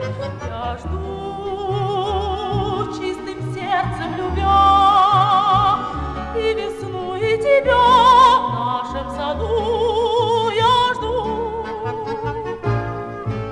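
Soviet estrada song from a 1961 record: a woman's voice holding long notes with a wide vibrato, moving from note to note, over an instrumental ensemble accompaniment. The voice is loudest about 8 seconds in.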